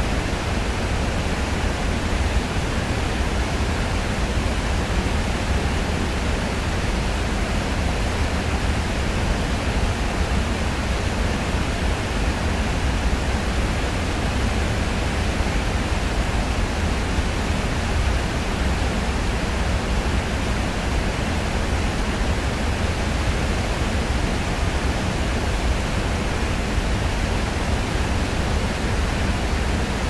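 Steady, unbroken rush of a large waterfall, with most of its weight in a low rumble.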